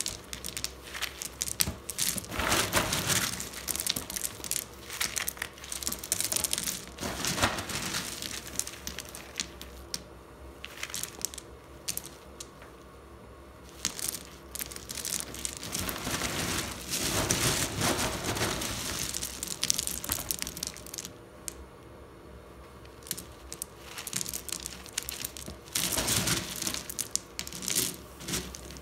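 A gloved hand scooping and turning over Sobianek Gold eco-pea coal in a woven plastic sack: the small lumps clatter and grind against each other and rustle against the sack in several bouts, with quieter pauses between.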